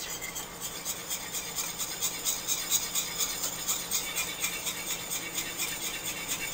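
Wire whisk beating a thin mayonnaise-and-milk dressing in a glass mixing bowl: quick, even strokes, about four to five a second, the wires ticking and scraping against the bowl.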